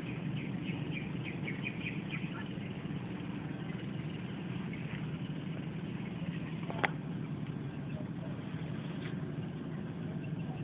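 A steady low mechanical hum, like a distant engine running, with small birds chirping briefly in the first couple of seconds and a single sharp click about seven seconds in.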